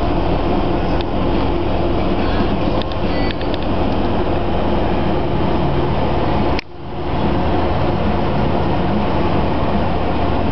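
A bus engine idling steadily, a low continuous rumble. About two-thirds of the way in the sound cuts out abruptly and fades back up.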